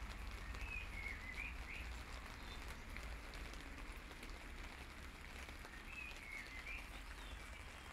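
Steady rain falling on wet paving, with scattered drips. A bird sings two short warbling phrases, about half a second in and again at about six seconds.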